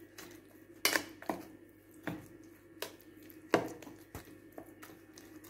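Metal spoon stirring a wet oats-and-egg batter in a stainless steel bowl, clinking and scraping against the bowl in irregular knocks. The loudest knocks come about a second in and again a little past three and a half seconds.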